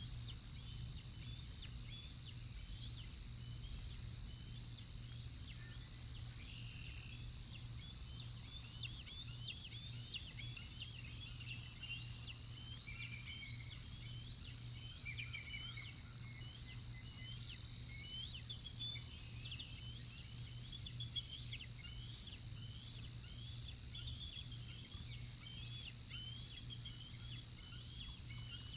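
Birds chirping outdoors: many short, high chirps come in quick succession throughout, with a few longer sliding notes, over a steady low hum.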